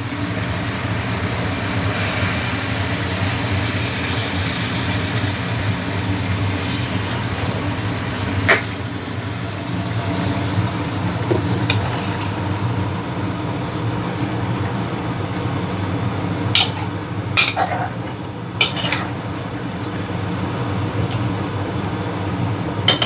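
Hot water poured into a pot of masala-fried vegetables, hissing and sizzling most strongly in the first few seconds, then the curry bubbling as a metal ladle stirs it. A few sharp taps of the ladle against the metal pot come in the second half.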